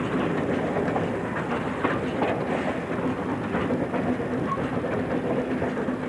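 1929 Kerr Stuart industrial locomotive's diesel engine running steadily under load as it hauls the train up a grade, a steady hum over the engine noise, with the wheels clicking over the rail joints.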